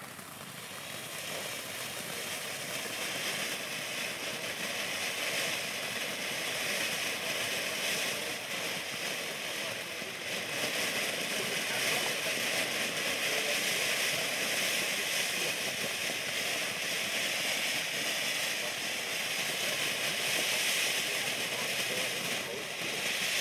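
Blackboxx Nova ground fountain burning, a steady hiss of spraying sparks that builds over the first few seconds and then holds even.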